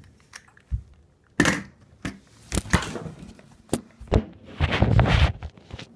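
Handling noise from a phone: a run of irregular bumps and rubs against the microphone, the longest and loudest near the end.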